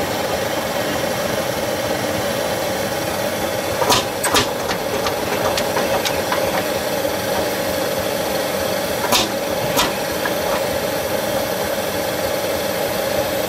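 Tractor engine running steadily, with a cluster of three sharp knocks about four seconds in and two more a little after nine seconds.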